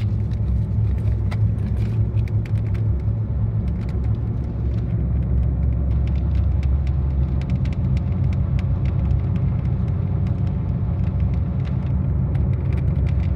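Steady low rumble of a car's engine and road noise heard from inside the cabin while driving, with faint scattered ticks.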